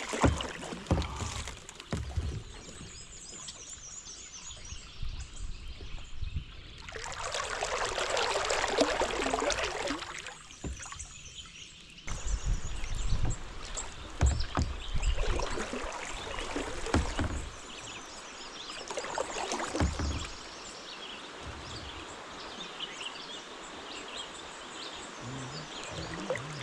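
Kayak paddle strokes on a calm river, the blades dipping and pulling through the water with splashes and drips. About seven seconds in, a louder rush of water lasts about three seconds.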